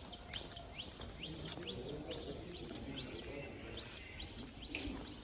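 Small birds chirping: short calls sweeping upward, about two a second, over a steady background rush of noise with faint distant voices.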